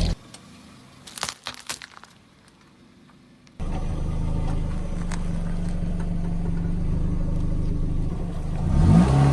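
Car engine running steadily, with a few sharp cracks about a second in and a loud burst of crunching and cracking near the end as objects are crushed under the car's wheels.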